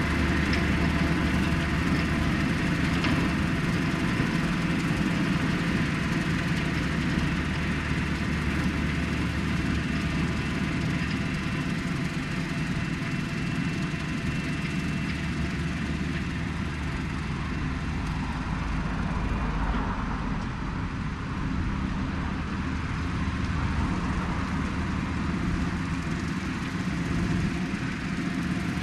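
John Deere 4066R compact tractor's four-cylinder diesel engine running steadily under load while it mows a grass bank, dipping slightly in level around the middle.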